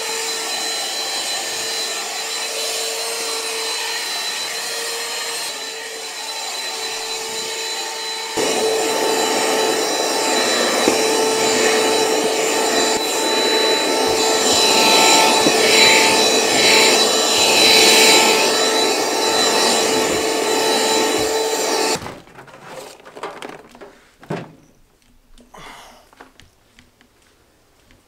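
Ryobi cordless hand vacuum running with a steady whine, sucking up debris from carpet. About eight seconds in it gets louder and harsher. It switches off abruptly near the end, leaving only a few faint handling knocks.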